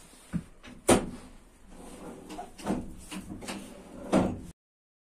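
Metal clunks and rattles of the cab controls and levers of an HŽ series 2132 diesel shunting locomotive being handled, its engine not running. There are about five sharp knocks, the loudest about a second in.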